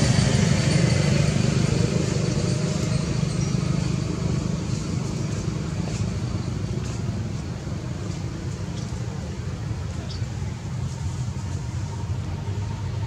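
Steady low rumble of vehicle traffic that slowly fades, with a few faint high chirps near the end.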